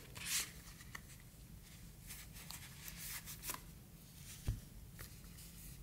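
Faint handling noises: white cotton gloves rustling and sliding over a leather-bound booklet and the paper books inside it, with a brief swish near the start and a soft thump about four and a half seconds in.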